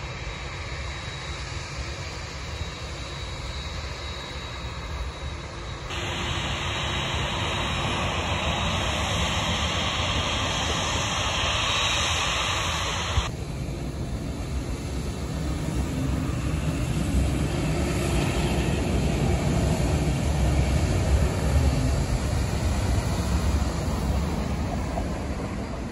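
Twin-engine jet airliner landing on the runway: a steady rush of jet engine noise with a deep rumble. The sound changes abruptly twice, and the rumble swells to its loudest in the last ten seconds as the jet passes close.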